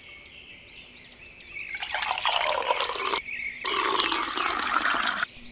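Liquid being poured into a vessel twice, each pour a splashing trickle lasting about a second and a half, with a short break between them.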